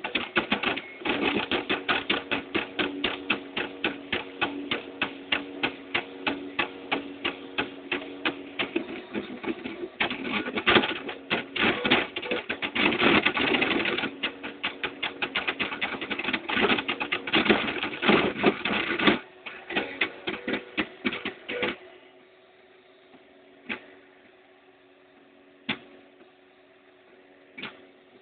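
3D printer running a print: its motors drive the print head through short, rapid moves, giving a fast stuttering run of clicks over a steady whine. The run stops about 22 seconds in, leaving a faint hum and a few single clicks.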